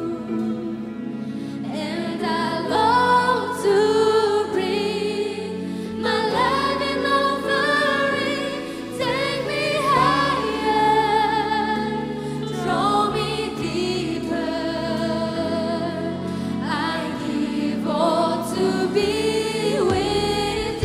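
Live contemporary worship song: a woman's lead vocal sung into a microphone, joined by female backing singers, over sustained instrumental accompaniment.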